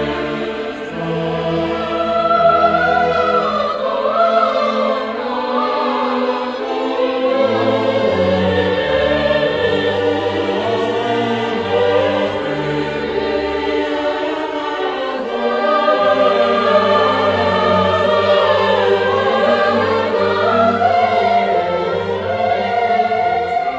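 Background music: choral and orchestral music with sung voices over sustained chords, fading out at the end.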